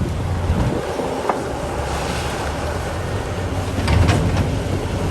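Water running or spraying steadily as a mud-caked toy is washed, with a few light knocks about a second in and around four seconds in.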